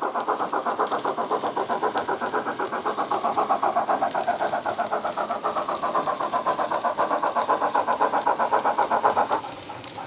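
Simulated steam locomotive exhaust from a Loksound 5 sound decoder running Jamie Goodman's BR 9F sound file through a megabass speaker in a Bachmann 9F model: rapid, evenly spaced chuffs. The beats cut off suddenly about nine seconds in, leaving a quieter running sound.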